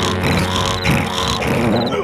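Cartoon character vocal effect: short grunting noises from the Yellow larva, repeating about twice a second.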